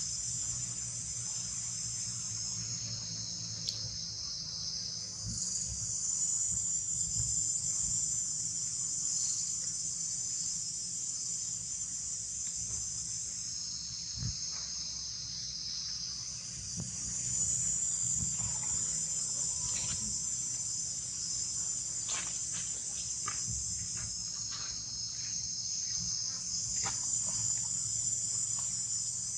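A dense chorus of insects buzzing at a high pitch, the whole band sliding down and back up in slow swells every several seconds, over a low steady rumble with a few faint clicks in the second half.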